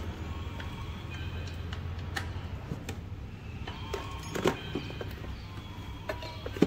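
Metal tools and engine parts clicking and knocking as hands work inside a car's engine bay, with a cluster of louder knocks about four and a half seconds in, over a steady low hum.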